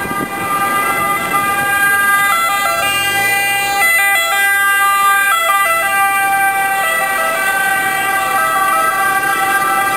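Ambulance siren sounding in held tones that step up in pitch and back down several times, over city traffic.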